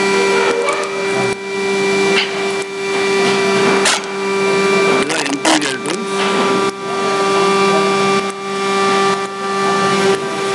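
A machine running with a steady hum made of several steady tones, cutting out near the end. Faint voices can be heard in the background around the middle.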